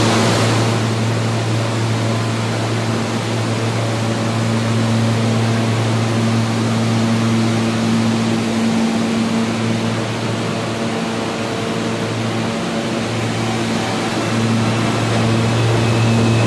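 R160 subway train running past along the platform: a steady low hum with rail and wheel noise. A faint high whine comes in near the end and steps up in pitch.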